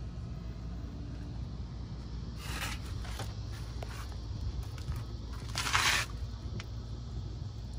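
Two short scrapes, about two and a half seconds in and again, louder, about five and a half seconds in, over a steady low rumble.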